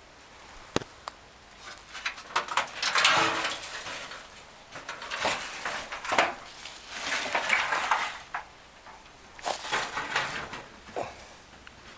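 Corrugated tin sheet being handled and lifted off the ground: a series of clattering, scraping bursts with a few sharp clicks near the start.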